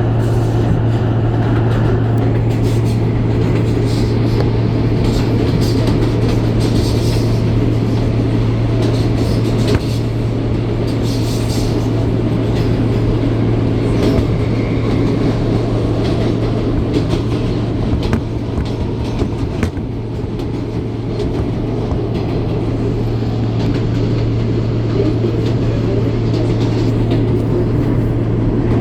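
R160 subway car running at speed, heard from inside the car: a steady low drone over wheel-on-rail noise, with occasional sharp clicks from the track.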